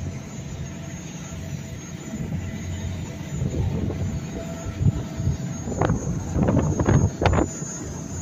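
Steady low rumble of a passenger ferry under way, heard on its open deck. From about halfway through, wind gusts buffet the microphone in loud, irregular blasts.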